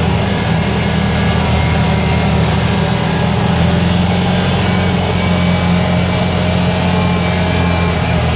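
2012 Can-Am Commander 800 side-by-side's V-twin engine running steadily, an even low drone with no revving.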